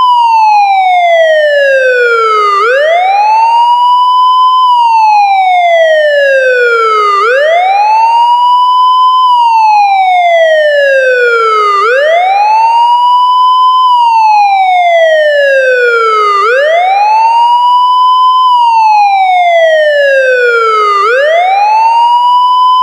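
Police car siren sounding a slow wail: the pitch sweeps up quickly, holds briefly at the top, then falls steadily back down, repeating about every four and a half seconds. It is loud and even in level.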